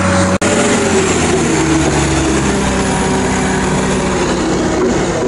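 Tigercat 630E grapple skidder's diesel engine running at close range, a steady heavy machine drone whose pitch eases slightly lower after about two seconds.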